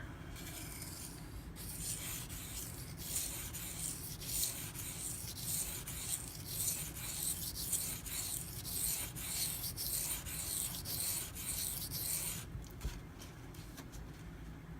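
Steel knife blade scraped back and forth across a wet coarse waterstone in quick rhythmic strokes, about two a second, stopping about three-quarters of the way through. The edge is being ground on the stone to remove chips in it.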